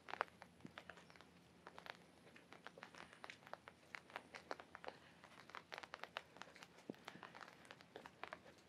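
Scattered raindrops tapping on an umbrella, quiet and irregular light taps with no steady rhythm.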